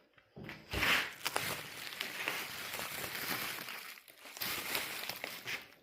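Packaging crinkling and rustling, with many small crackles, as a newly delivered replacement grille is handled and unwrapped.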